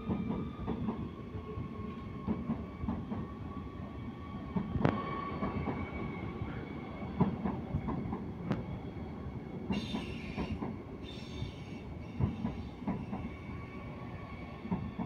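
Siemens Desiro HC double-deck electric multiple unit rolling slowly into the station: wheels clicking over rail joints and points with a steady whine, and two brief high wheel squeals about ten seconds in.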